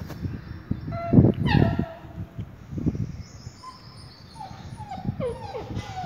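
Black Labrador puppy whimpering: short high whines that fall in pitch, one about a second in and several close together in the second half, over a few low thumps.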